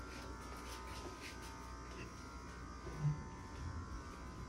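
Faint steady electrical hum and buzz of room noise, with a few soft footsteps of sock feet on a tile floor.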